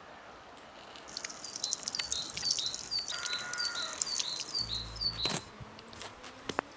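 A songbird calling a quick run of about a dozen short, high chirps, each falling in pitch, about three a second, starting about a second in. A brief low rumble comes near the end.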